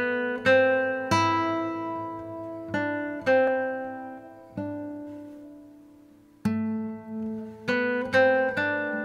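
Slow instrumental music: ringing notes and chords, each starting sharply and fading away, with a longer held note about halfway through.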